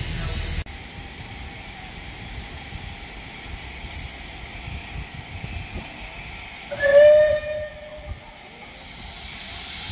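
Steam locomotive hissing close by, cut off abruptly about half a second in; then a quieter stretch, and one short steam whistle blast, about a second long, near the end, the loudest sound.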